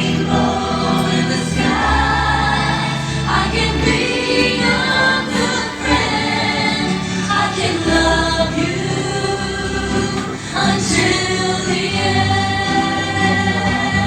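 Music: a song with choir singing over held chords and a steady bass line.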